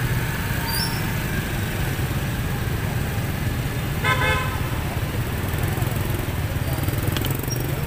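Slow street traffic of motorbikes, scooters and cars, with a steady low engine rumble and one brief vehicle horn honk about four seconds in.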